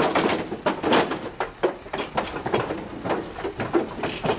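Irregular clattering knocks and bangs, several a second, with no voices.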